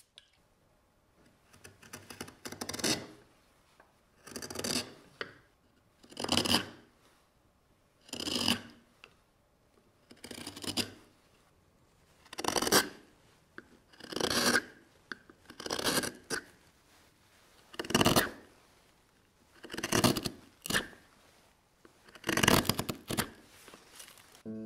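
Carving gouge cutting scooped facets into a wooden board dampened with water to ease the cutting, one cut about every two seconds, about a dozen in all, each a short shaving stroke with quiet between.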